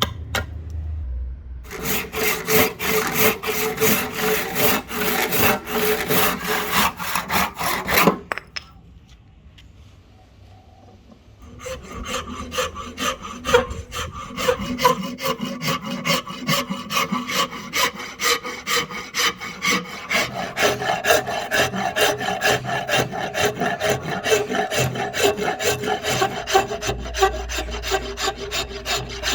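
Rosewood being worked by hand with a cutting tool in quick, repeated back-and-forth strokes. The strokes stop for about three seconds about a third of the way in, then carry on steadily.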